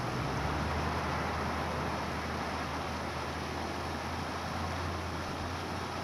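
Steady rushing of a shallow creek running over stones, with a low steady rumble underneath that sets in just after the start.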